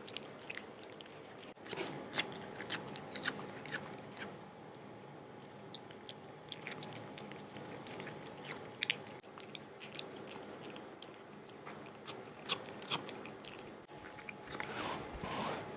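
Cat eating wet canned cat food: soft, irregular chewing with many small wet clicks, busier near the end.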